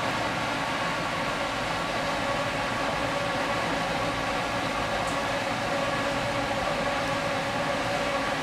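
Steady mechanical hum with several steady tones running unchanged throughout.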